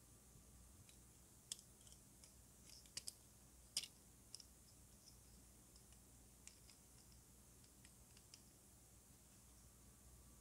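About a dozen small, sharp plastic clicks and taps over near silence, the loudest about four seconds in, as painted plastic model-kit body parts are handled and pressed together.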